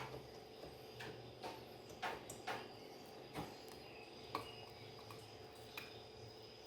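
Faint, irregular clicks and taps of small metal gearbox parts being handled as the last gear is worked off a washing-machine gearbox shaft, about eight in all, over a faint steady high whine.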